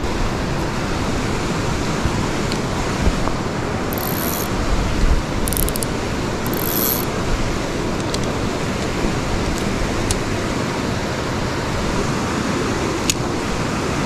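Steady rush of a small creek's flowing water, with wind buffeting the microphone, strongest about four to five seconds in.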